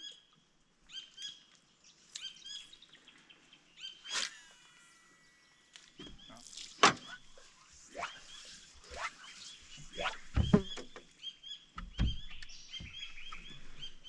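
Birds chirping repeatedly in short calls, with a falling whistled call about four seconds in. Several sharp knocks or thumps come from about six seconds on.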